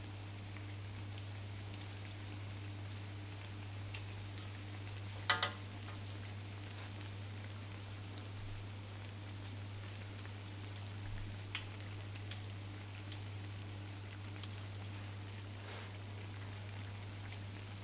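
Patongko dough sticks deep-frying in hot oil, a steady sizzle with a low hum underneath and a few light clicks. A brief high squeak sounds about five seconds in.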